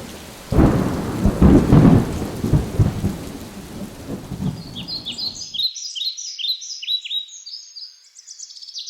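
Thunder rumbling over the hiss of rain, which cuts off suddenly about five and a half seconds in. Birds chirping follow: a run of quick, high, falling chirps.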